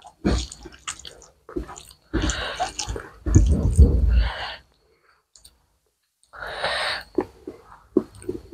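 Close-miked eating sounds: wet chewing and squishing as rice and curry are mashed and mixed by hand. The sounds come as scattered clicks and two longer squelchy stretches, then a short breathy rush about seven seconds in.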